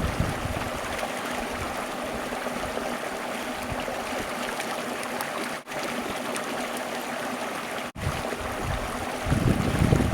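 Stream water running, a steady rushing splash, broken twice by a sudden momentary dropout. Wind buffets the microphone with a low rumble near the end.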